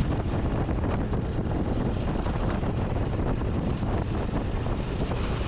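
Steady wind rush on the microphone of a moving motorcycle, with the bike's engine and road noise underneath.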